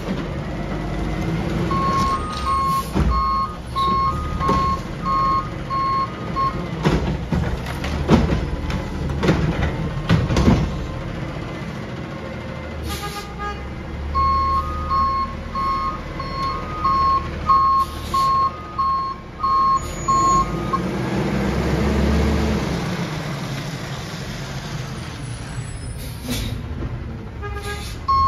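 Garbage truck's diesel engine running, with its backup alarm beeping about twice a second in runs, early on and again in the middle. In between come a series of loud clanks and bangs from the truck's lifting and dumping gear.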